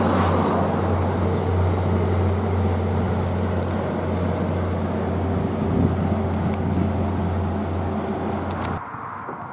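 Rocky Mountaineer passenger train rolling past on the track: a steady low rumble with a few faint clicks. It cuts off abruptly about a second before the end.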